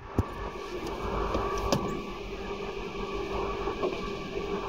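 JR Kyushu 811 series electric train heard from on board: a steady traction-motor hum with several held tones over low running rumble, from a car whose motors have been refitted with external cooling fans. Two sharp clicks come through, one just after the start and one nearly two seconds in.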